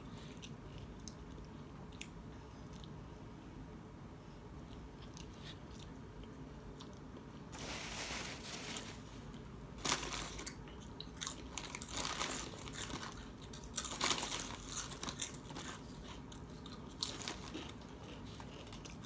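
Close-up eating sounds in a small room: a few quiet seconds of faint ticks, then a Lay's potato-chip bag crinkling as a hand rummages in it, followed by bites and crunching of potato chips.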